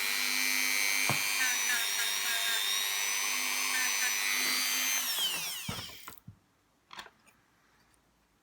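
Small electric rotary tool running steadily with a high whine while polishing rust off a small screw, then winding down in pitch and stopping about six seconds in, followed by a couple of light clicks.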